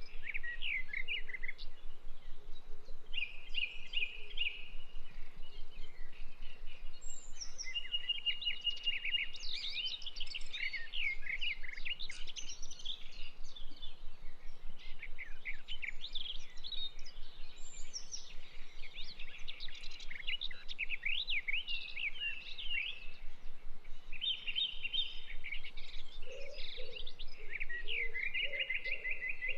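Small birds chirping and trilling, many short, quick calls overlapping one another over a steady low hiss. A lower repeated note joins near the end.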